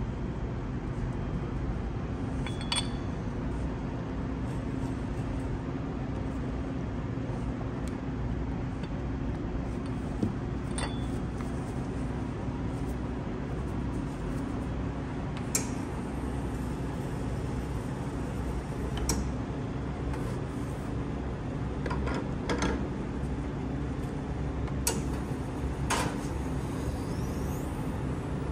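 Steady low hum of espresso-bar machinery, with about eight short clinks and knocks of metal and ceramic spread through it as a portafilter, milk pitchers and cups are handled.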